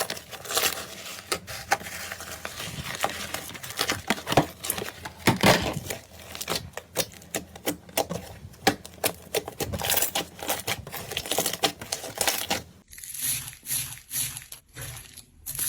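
Makeup products being handled: irregular tapping, clicking and crinkling. About 13 seconds in the sound changes to a sparser pattern with a thin high hiss.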